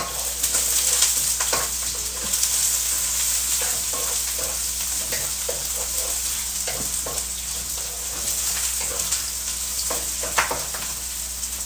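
Food sizzling in a hot frying pan while being stirred with a wooden spatula. Scattered light scrapes and taps of the spatula on the pan ride over the steady sizzle, with one louder knock near the end.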